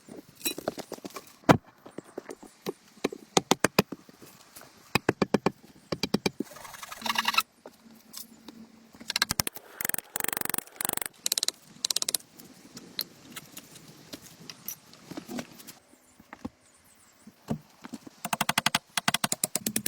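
A power tool running in short bursts of rapid rattling impacts, starting and stopping many times, like screws being driven.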